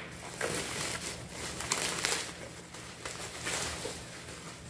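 Bubble wrap crinkling and rustling as it is pulled off a stack of wooden plates, in irregular louder swells.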